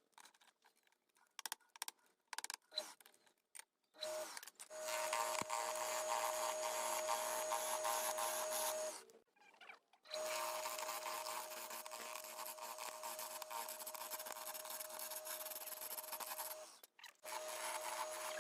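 A handheld electric power tool runs with a steady whine, working wood. It stops twice briefly, then starts again. Before it starts there are a few scattered light knocks.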